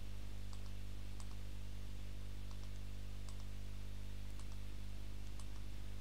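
Computer mouse clicking faintly about six times, spread out, over a steady low hum.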